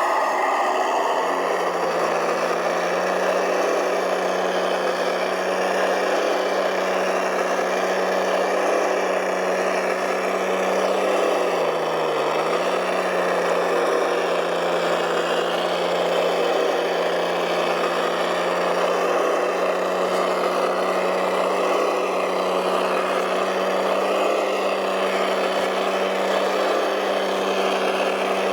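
Engine sound of a large radio-controlled model truck or machine running steadily, with a short dip in pitch about twelve seconds in.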